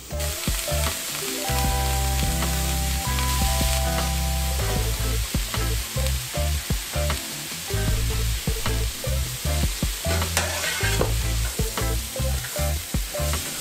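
Bacon and chopped vegetables sizzling in a hot pan over medium-high heat while being stirred, with occasional clicks of the utensil against the pan. Steady low tones run underneath in stretches.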